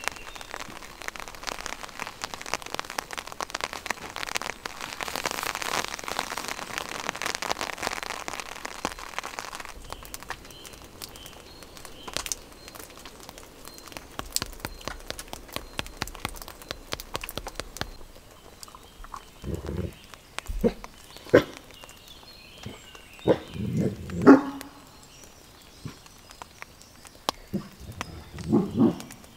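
A large dog, a Kangal and German shepherd mix, barking several times in short separate barks during the second half. The barks come once, then again, then in a quick cluster, and once more near the end. Before that, a steady crackling hiss made of many fine clicks runs for about the first ten seconds, then stops.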